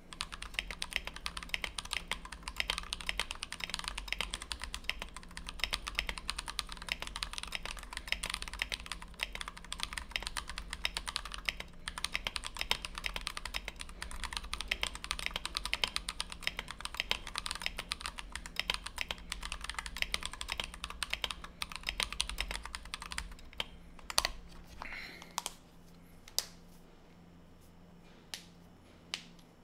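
Fast typing on a Tofu 60 mechanical keyboard with lubed, filmed Everglide Dark Jade tactile switches, a brass plate and PBT OEM blank keycaps: a dense run of key clicks that stops about 23 seconds in. A few separate clicks follow.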